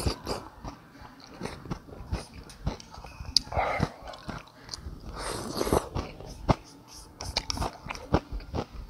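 Close-miked chewing of a mouthful of beef rice noodles: wet mouth clicks and smacks keep coming, with two short hissy rushes about three and a half and five seconds in.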